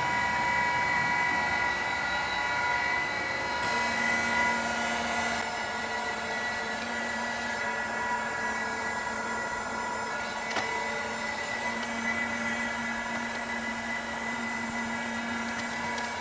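Surface grinder running, its spinning wheel and spindle giving a steady whine with several high tones; a lower steady hum joins about four seconds in.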